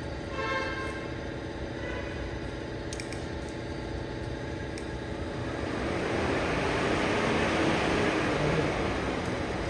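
Car engine idling with a steady hum, joined about halfway by a rising rush of air from the Hyundai Grand i10 Nios's newly replaced radiator cooling fan, with no knocking or scraping.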